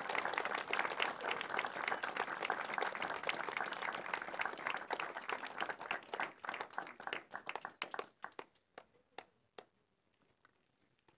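Crowd applauding: dense clapping that thins to a few scattered claps and dies away about nine seconds in.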